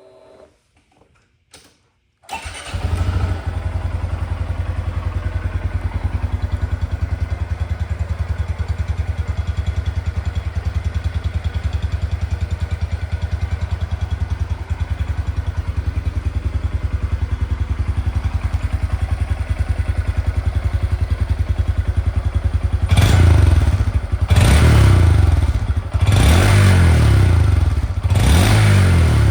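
2025 Honda Grom's single-cylinder engine through its stock exhaust: it starts about two seconds in, idles steadily, then is revved four times near the end. Pretty quiet on the factory muffler.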